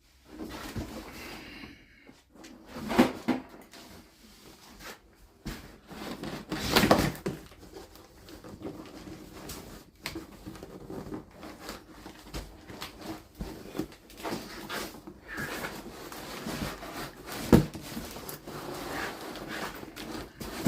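A heavy cardboard shipping box being handled and shifted, with rustling and scraping and several knocks. The loudest knock comes about seven seconds in, and a sharp one comes near the end.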